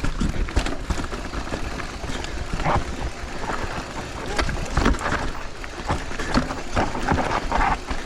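Mountain bike clattering down a rocky technical trail: a fast jumble of knocks and rattles from tyres, frame and chain hitting rock, over a steady low rumble.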